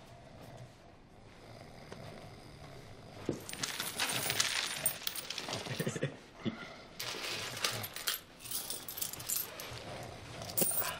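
Clothes rustling and coins clinking as pockets are rummaged through, starting about three seconds in as a run of small clicks and rustles.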